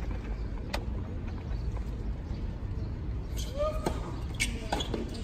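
Tennis ball struck by racquets during a rally: one sharp hit about a second in, then several quick hits in the last two seconds, over a steady low background rumble.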